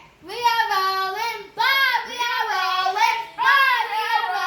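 A child singing with a high voice, holding notes in three phrases of about a second and a half each.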